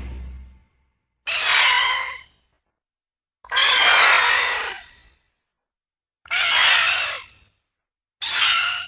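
Edited monster creature calls for a giant moth kaiju: a string of separate shrill screeches, each about a second long, with full silence between them. The tail of one call fades at the start, then four more follow.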